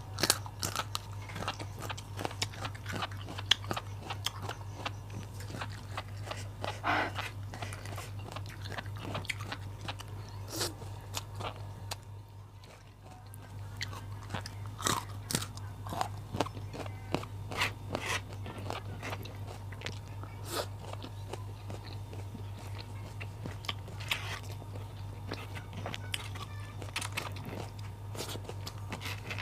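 Close-up chewing and crunching of raw vegetables (bitter melon, petai beans, green chilies) with rice, many crisp bites and mouth sounds, pausing briefly about twelve seconds in. A steady low hum sits underneath.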